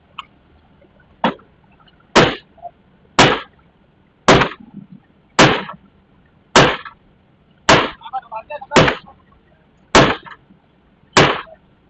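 Heavy strikes at an even pace, about one a second: two lighter ones first, then nine loud ones, each with a short ringing tail.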